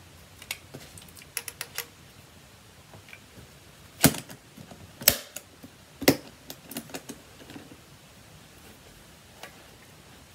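Clicking and clacking of a flute and its hard case being handled before playing: scattered light clicks, with three sharp, louder clacks about a second apart midway.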